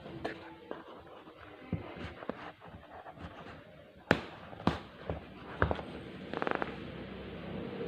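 Handling of a phone's cardboard box and packaging: scattered clicks and knocks, a few sharper taps around four to six seconds in, and a quick rattle of ticks shortly after.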